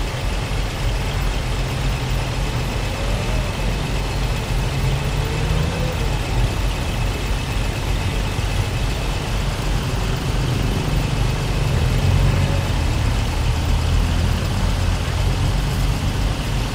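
Idling bus and vehicle engines: a steady low rumble under general street noise.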